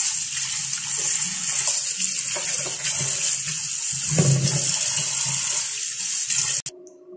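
Kitchen tap running steadily into a steel bowl of fruit in a stainless steel sink, splashing over the fruit as a hand washes it under the stream. The sound cuts off abruptly near the end.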